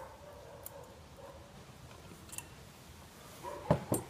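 Small metallic clicks of valve stem seal pliers working on an engine's open cylinder head as a new valve stem seal is pressed into place, then two sharp metal knocks near the end. A faint, broken whine sounds in the background.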